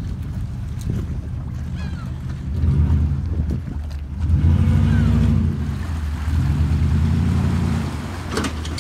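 An engine idling with a steady low hum, revving up and easing back down three times.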